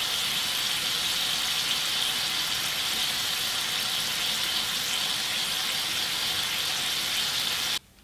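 Thin slices of meat sizzling in bubbling fat on a HomeCraft nonstick electric griddle: a steady hiss that cuts off suddenly near the end.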